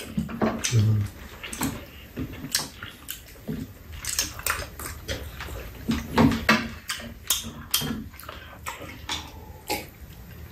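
Eating at a table: metal spoons clinking and scraping against bowls and a metal tray in irregular taps, with wet chewing and slurping of saucy tteokbokki.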